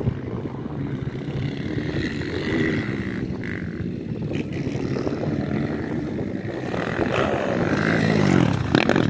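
Motocross dirt bike engine revving on a dirt track, its pitch rising and falling with the throttle, louder and climbing in pitch near the end as the bike comes closer.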